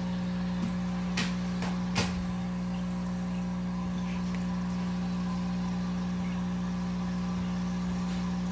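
Aquarium equipment running with a steady low mechanical hum, with a few faint clicks about one and two seconds in.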